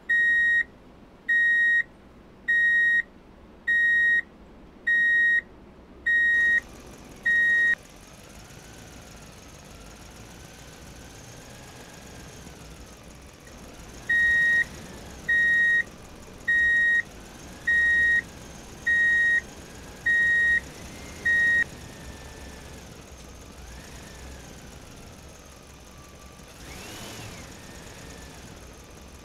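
Electronic reversing-alarm beeps from a toy RC truck: single steady high beeps a little over one a second, seven in a row, then after a pause of about six seconds seven more. A faint wavering whine sits under the gaps between the runs.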